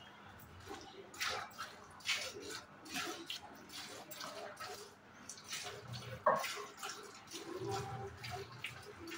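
Hand-milking a cow: streams of milk squirt into a pail in short splashy strokes, roughly one a second. There is one sharp knock about six seconds in.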